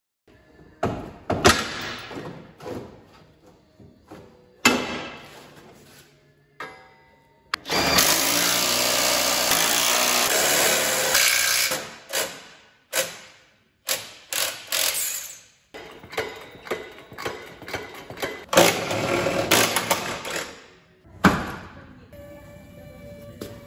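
Power tool running in two longer bursts, about 8 s and 19 s in, among metal knocks and clanks as the stock exhaust muffler is unbolted from under the car.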